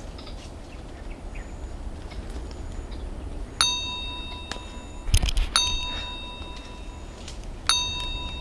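Three bell-like notification dings from a like-and-subscribe button overlay, each ringing briefly and fading, with a quick burst of mouse-click sounds just before the second ding. Under them runs a steady low background rumble.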